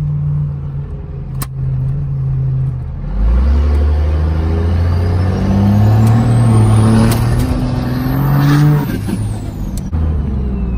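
12-valve Cummins diesel in a Dodge pickup accelerating hard from about three seconds in, its BorgWarner SXE364/68 turbo with a T51R-mod compressor cover spooling up with a rising whistle. Near nine seconds in the throttle comes off and the whistle falls away. Heard from inside the cab.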